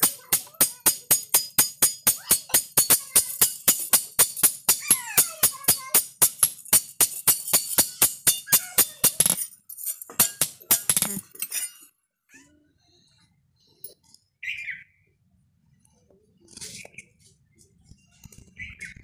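Hand hammer striking a steel hoe blade on an anvil in a fast, steady rhythm of about five metallic blows a second. The hammering stops about nine seconds in, a few last strikes follow, and then there are only faint handling sounds.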